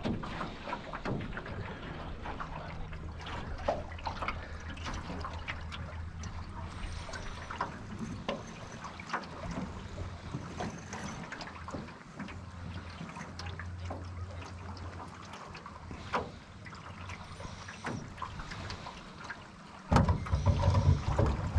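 Water slapping and trickling against the aluminium hull of a Grumman Eagle 15 sailing canoe under way in choppy water, with many small irregular splashes. Near the end a louder low rumble comes in suddenly.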